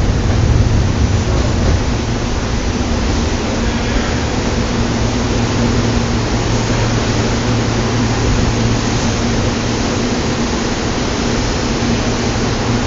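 SEPTA Silverliner electric commuter train pulling away along the track, heard as a steady rushing noise with a low hum underneath.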